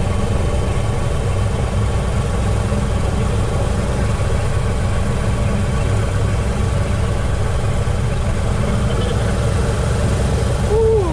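Douglas DC-6's Pratt & Whitney R-2800 radial piston engine running steadily on a ground run after a governor change, heard from inside the cockpit.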